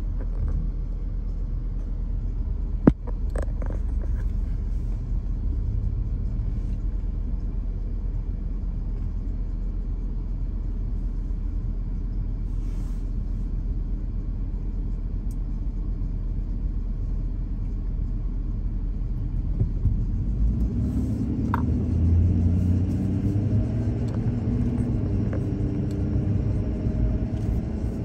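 Steady road and engine rumble of a pickup towing a car-hauler trailer, heard from inside the cab, with a single sharp click about three seconds in. Over the last several seconds the engine note grows louder and climbs slightly as the truck pulls away.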